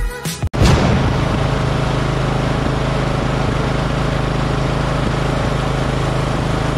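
Outro music stops about half a second in, then a riding lawn tractor's engine runs steadily, heard close up from a camera mounted on its hood.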